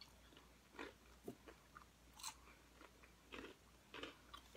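Faint crunchy chewing of nacho tortilla chips, a series of short crunches about one every half second to a second.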